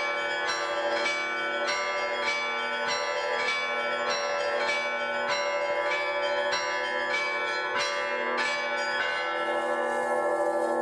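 Church bells ringing: a stroke about every half second over the lasting hum of several bells. The strokes stop about nine seconds in and the bells ring on.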